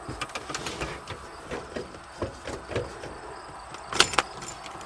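Scattered light clicks, taps and rubbing as someone handles things in a truck cab, with a sharper click about four seconds in; the diesel engine is not yet running.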